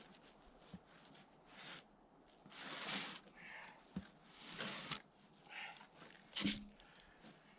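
Irregular rustling, scuffing and light knocks, a few short bursts half a second long or less, with a sharper knock about six and a half seconds in.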